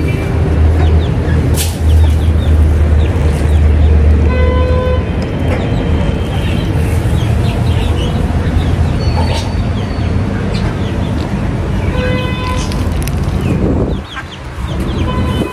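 Backyard chickens clucking and calling over a steady low rumble, with two short pitched honks about four and twelve seconds in.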